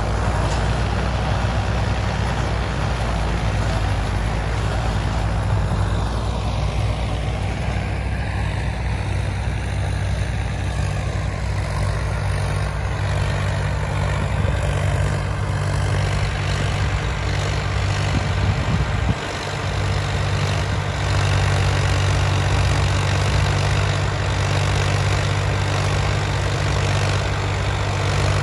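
Diesel tractor engine running steadily under load as it drives a rotary superseeder through paddy stubble. The level dips briefly about two-thirds of the way in.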